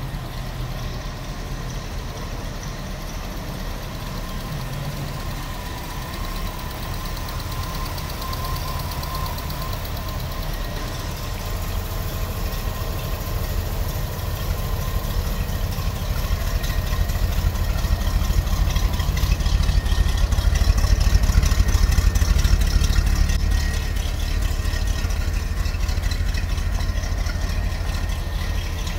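1965 Chevrolet Corvette's V8, fitted with electronic fuel injection, idling steadily just after a cold start. The idle grows louder about two-thirds of the way through, then eases back a little.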